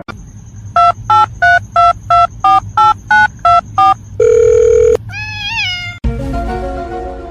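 Telephone keypad dialing tones: ten short two-tone beeps at about three a second, each a different key. A long buzzy tone and a swooping tone follow, then music.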